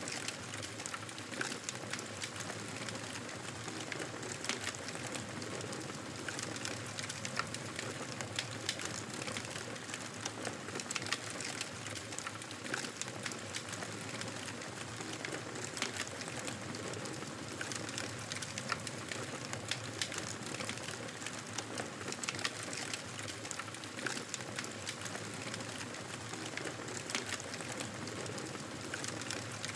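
Campfire burning, with a steady hiss and frequent irregular crackles and pops.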